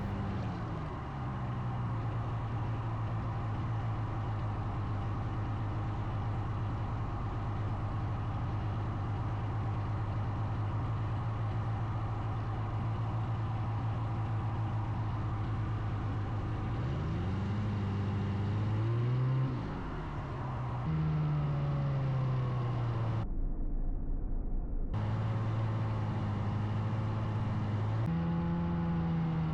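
Snowmobile engine running steadily under way, its pitch rising and falling a few times in the second half as the throttle changes. A short break of a couple of seconds leaves only a low rumble.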